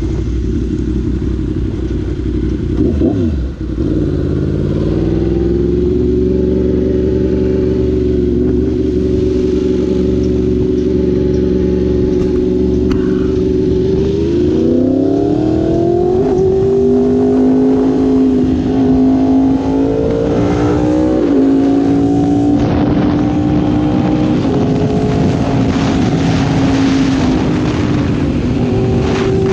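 Yamaha R1's crossplane inline-four through an Austin Racing exhaust, heard from the rider's seat. The note dips and picks up again about three seconds in, holds steady, then climbs through several gears from about halfway, rising in pitch with drops at each shift. Wind noise builds as the speed rises near the end.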